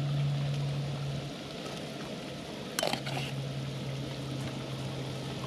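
Hot butter and oil sizzling in a pot on a camp stove as flour is poured in to start a roux. A low steady hum runs underneath and drops out for about a second and a half, and there is one sharp click near the middle.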